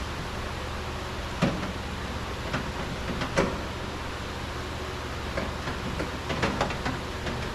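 Scattered clicks and knocks of hands working on parts inside a car door, about half a dozen sharp ones spread unevenly, over a steady low hum.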